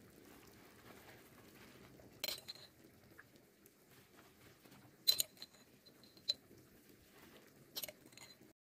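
Kitchenware clinking: four or five sharp light knocks of metal or glass, spread out over a faint low background hiss, the loudest about five seconds in.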